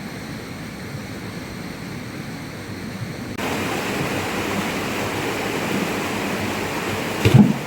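Steady rush of water, like rain or a flowing river, that turns abruptly louder and brighter a few seconds in. A short, loud, low thump comes near the end.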